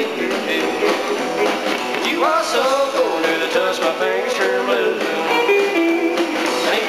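Live blues-rock band playing an instrumental passage: electric guitars over bass and drums, the guitar line bending notes up and down, with a marked upward bend about two seconds in.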